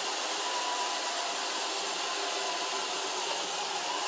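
iRobot Roomba robot vacuum cleaning the floor: a steady whir of its vacuum motor and brushes with a faint high whine.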